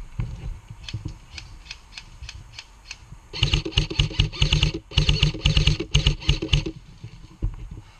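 Airsoft electric gun firing two fast full-auto bursts, each about a second and a half long, with the gearbox whirring under the rapid shots. Scattered single cracks come before the bursts.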